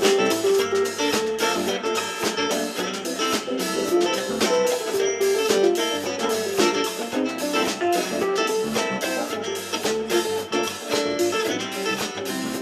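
Live band playing an instrumental passage with a steady beat.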